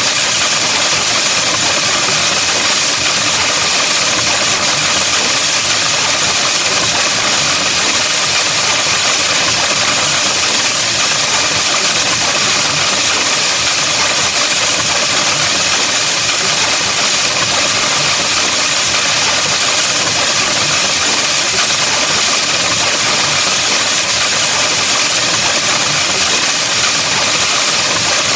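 Steady, unchanging buzzing drone, dense and harsh, from an electronically processed (autovocoded) sound effect.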